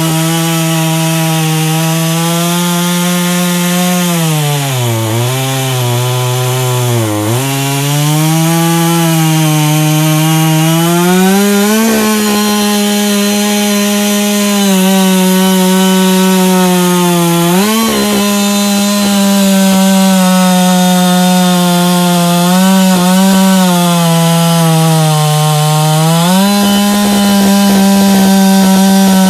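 Husqvarna 560 XP, a 60 cc two-stroke chainsaw, running at full throttle while its 18-inch bar cuts through a large beech trunk. The engine pitch sags twice between about four and seven seconds in as the chain loads up in the cut, dips briefly again later, and climbs to its highest near the end.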